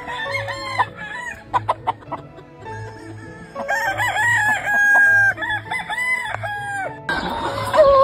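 Gamefowl roosters crowing, louder from about halfway through, with a crow falling in pitch near the end. A background music track with a steady soft beat runs underneath.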